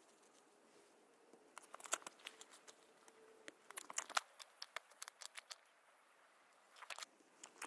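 Rubber boots tramping through wet mud and dead reed stalks, with a long-handled hoe dragged and dug into the mud: irregular sharp crackles and squelches in clusters, busiest a couple of seconds in and again near the end.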